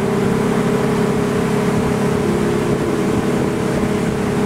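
Motorboat engine running at a steady speed under a steady rush of wind and water noise.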